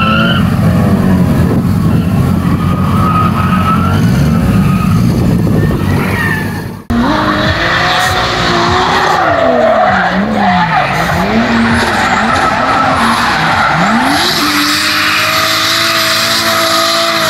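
A drift car's engine revving hard, with tyres skidding. After a sudden cut about seven seconds in, the Toyota Cressida's 2JZ straight-six revs up and down through a drift, then holds steady high revs near the end as it slides past, tyres skidding.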